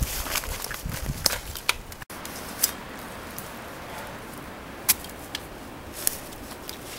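Footsteps shuffling and rustling in dry leaf litter, with scattered sharp clicks and snaps. The sound cuts out for an instant about two seconds in.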